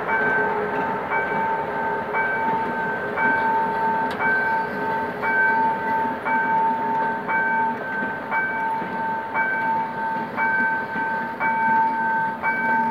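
Level crossing warning bell ringing, struck about once a second, over the rumble of passenger coaches rolling across the crossing.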